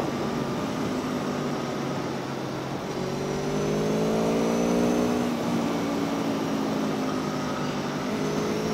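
Aprilia Tuono V4 1100's V4 engine under way on the road, rising in pitch as it accelerates about three seconds in, then easing off and holding steady, over a constant rush of wind and tyre noise.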